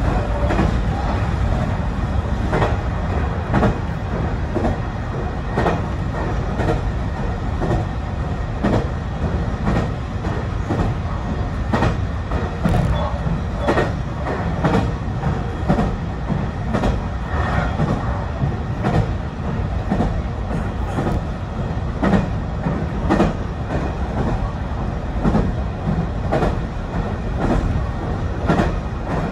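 Running noise of a BEC819 series DENCHA train: a steady low rumble, with the wheels clicking sharply over rail joints about once a second.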